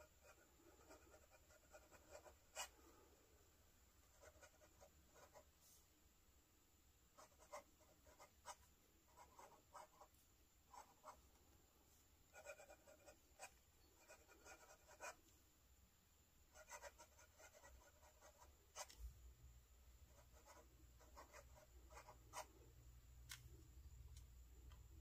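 Fountain pen with a #6 Jowo medium steel nib faintly scratching across thin onion skin paper, writing a line of cursive in short runs of strokes with brief pauses, with a few light ticks of the nib.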